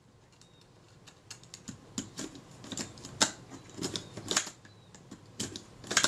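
Irregular small clicks and ticks of metal camera parts as the front mechanism of a Kodak Retina IIIc is worked back and forth by hand, with louder clicks in the second half.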